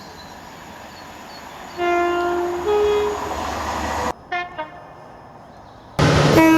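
Two-tone train horn sounding a low note and then a higher one, about two seconds in, over the rumble of a passing train. After a cut come two short toots. Near the end a much louder horn blast begins, close by.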